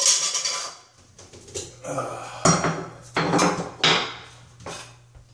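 Metal shower-fixture trim and hand tools being handled, with sharp metallic clanks and clatter that ring briefly. One clank comes right at the start, then several more between about two and a half and four seconds in.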